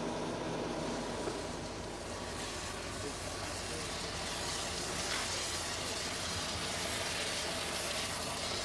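Steady running noise of railway vehicles or machinery, with a faint low hum underneath. It cuts off abruptly at the end.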